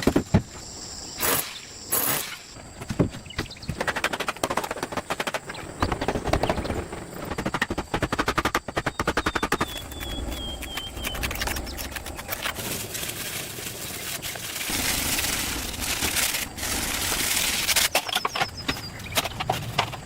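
Rapid, uneven series of sharp knocks and clatters, many strikes a second, with a noisier, louder stretch near the end.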